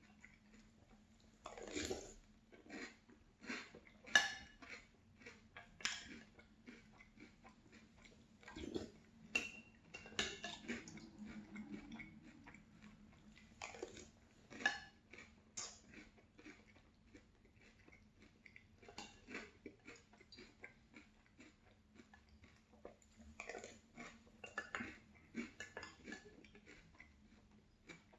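Chewing crunchy Boo Berry cereal with milk: irregular crunches and mouth sounds, with small clinks of a spoon in the bowl, over a low steady hum.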